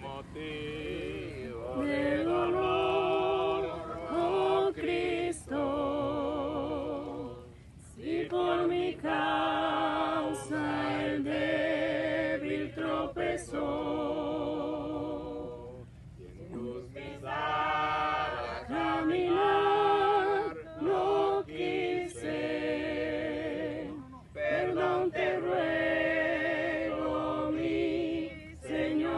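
A small group of men and women singing a hymn together without instruments, in sung phrases broken by short pauses.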